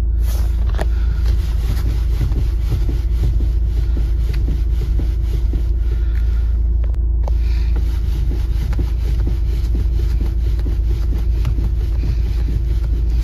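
Inside a Hyundai i30's cabin while driving over a rough road: steady road rumble with frequent light knocks and rattles. The knocks are the steering knock that shows on bad roads, with the tie rods, tie-rod ends and steering rack already found sound, so it is heard through the steering column in the cabin.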